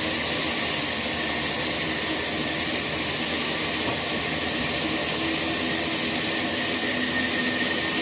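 Large horizontal band sawmill running steadily, its blade sawing through a babul log on the rail carriage: an even, unbroken hiss with a low hum underneath.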